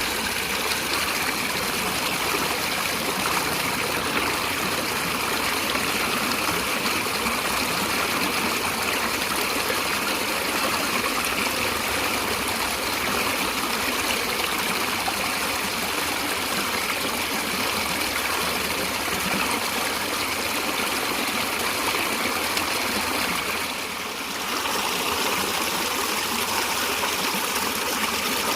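A stream of running water, a steady even wash of sound with a brief dip in level near the end.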